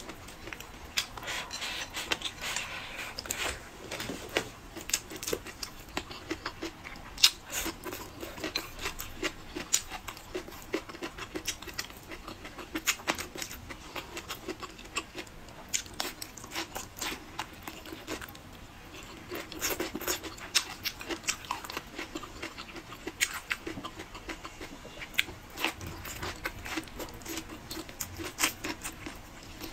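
A person eating: wet chewing and lip-smacking of blistered green peppers, braised pork rib and rice, with many short sharp clicks throughout.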